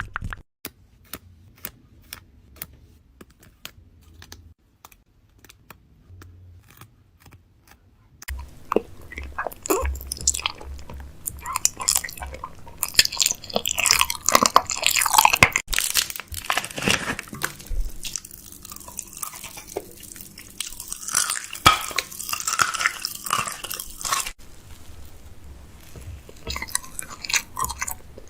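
Close-miked biting and chewing of a crunchy snack: faint clicks at first, then loud crunching from about eight seconds in that quietens again near the end.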